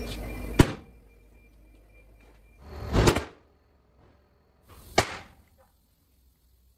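A Toyota Vitz's airbags going off in the gutted cabin: three sharp bangs about two seconds apart. The second bang comes after a brief rising rush. The curtain airbags along the roof fire with the last bang.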